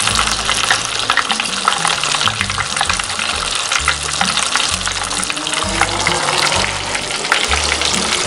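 Panko-breaded fish fillets deep-frying in hot oil in a cast iron pot: a steady, dense crackling sizzle.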